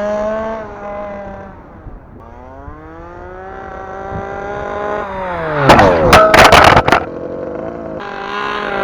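26cc two-stroke engine of a 1/5-scale RC touring car running at speed. Its note falls and fades, then climbs and grows louder to a loud, crackling pass about six seconds in, and drops in pitch again after it.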